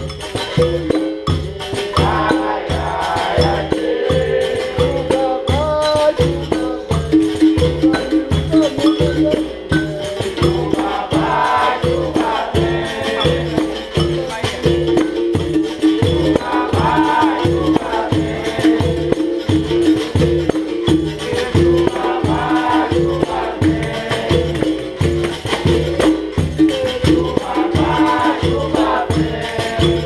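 Capoeira Angola roda music: atabaque drum, pandeiro and rattling percussion keep a steady rhythm under berimbau tones, with a group singing choruses that come back every few seconds.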